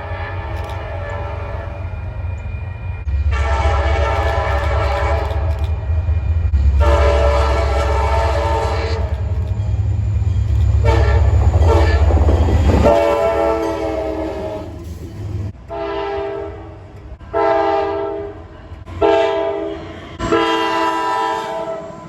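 Train horn sounding a chord of several notes in a long series of blasts: about five long blasts, then several shorter ones. Under them runs the heavy rumble and rail clatter of the passing train, which falls away about two-thirds of the way in.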